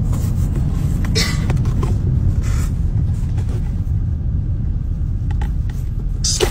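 Steady low road rumble inside a moving car's cabin, with a few brief rustles about a second in and again near two and a half seconds.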